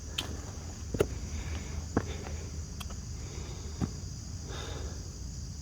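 Footsteps on the bare rock of a dry creek bed, sharp knocks about one a second, over steady insect chirring.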